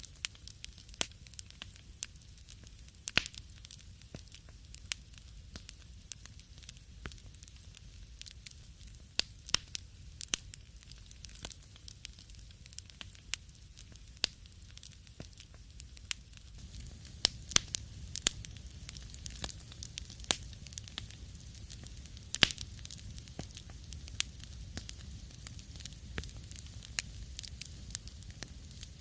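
Wood fire burning in a fireplace: irregular sharp crackles and pops over a low steady rumble, the pops coming more thickly in the second half.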